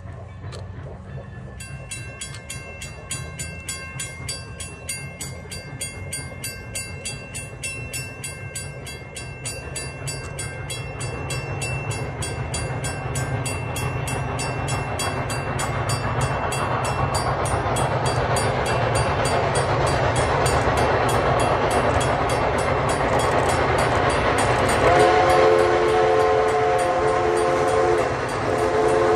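Steam locomotive No. 11 approaching, its bell ringing steadily and its exhaust growing louder as it nears. Near the end its steam whistle blows a long blast, breaks off briefly, and sounds again.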